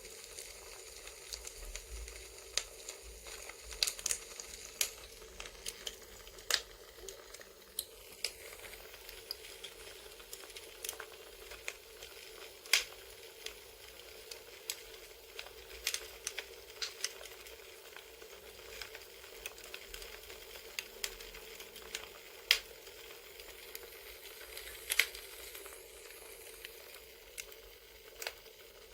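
Wood fire crackling: a steady soft hiss broken by irregular sharp pops and snaps, a few of them much louder than the rest.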